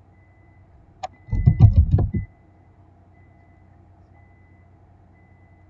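A single click, then about a second of loud, low thudding and rattling knocks.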